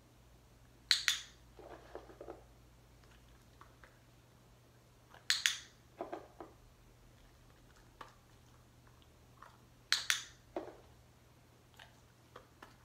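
A short, sharp click three times, about four to five seconds apart, each followed within a second by a dog taking a treat from the hand and chewing it briefly: the rhythm of marking and rewarding in dog training.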